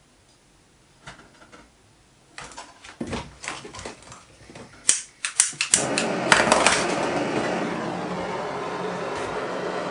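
Light metal clicks and knocks, then a few sharp clicks and a gas blowtorch catching about six seconds in and burning with a steady hiss, ready for silver soldering the fitting onto the brass boiler.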